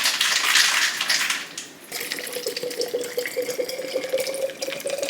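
Water running: a loud splashing rush for the first second and a half, then a steadier, quieter flow with a faint steady tone.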